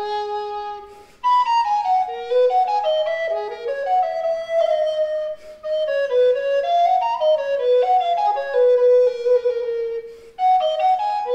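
Alto recorder after Bressan, made by Pietro Sopranzi, playing an unaccompanied melody of quick-moving notes. A short break comes just after a second in, and a long held note near the end fades away before the line picks up again.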